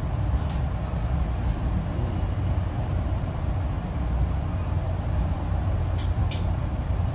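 Metro-North passenger train running on the rails, a steady low rumble. A few short sharp ticks come through, two in quick succession near the end.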